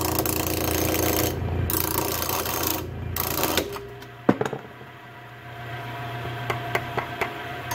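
Wood lathe running with a turning tool scraping and cutting a spinning wooden blank, a steady motor hum under a rough shaving noise. About three and a half seconds in the hum drops away and it goes much quieter, with a sharp click soon after and a few light clicks near the end.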